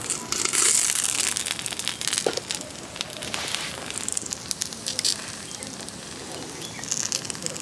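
Banana leaf crinkling as it is handled and pressed onto rice-batter roti on a hot tawa, over a small wood fire crackling with many sharp pops.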